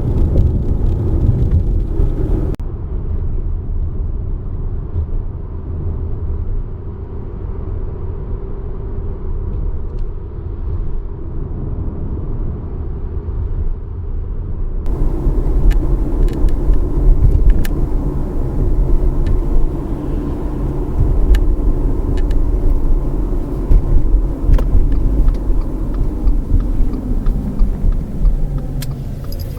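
Subaru Forester driving, a steady low road rumble heard from inside the cabin. From about halfway, scattered sharp clicks and ticks ride over it: the abnormal noise the owner reports as a fault, which he finds quite bothersome when no music is playing.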